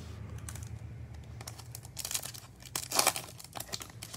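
Foil wrapper of a Topps Chrome baseball card pack crinkling as it is picked up and handled: faint crackles at first, then louder crinkling bursts about two and three seconds in.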